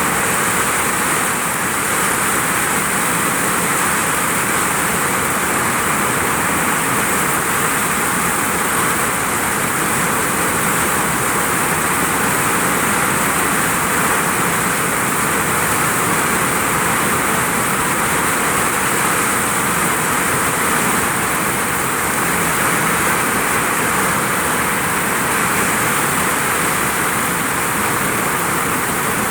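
Heavy rain hitting a vinyl roof, a loud, steady, dense hiss of drops that never lets up.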